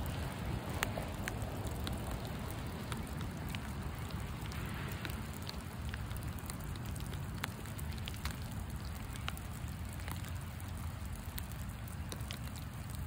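Rain falling steadily, with scattered sharper ticks of individual drops hitting close by.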